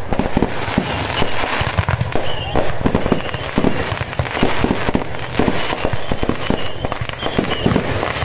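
Fireworks and firecrackers crackling and popping in a dense, unbroken run, many bangs a second.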